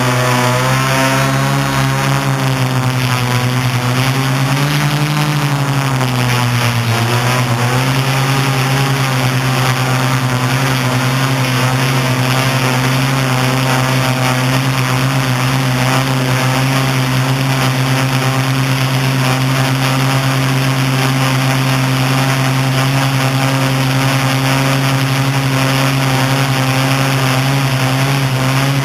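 Octocopter's electric motors and propellers buzzing. The pitch wavers up and down for the first several seconds, then holds steady as the craft hovers.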